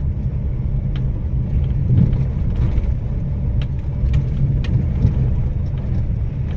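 Maruti Suzuki Wagon R car running, a steady low rumble of engine and road noise with a few faint light clicks. No 'gadgad' rattle is heard: a replaced clamp has cured it.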